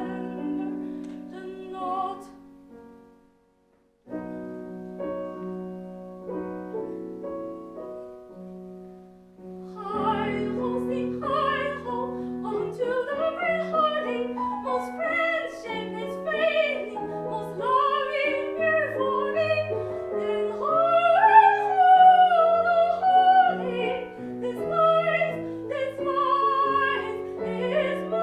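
Soprano singing a classical art song with piano accompaniment. The singing phrase ends about three seconds in, and after a brief break the piano plays alone. About ten seconds in the soprano comes back in, singing with a wide vibrato over the piano.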